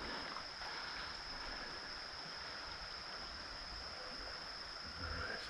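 Steady river ambience: flowing water with a continuous high insect trill.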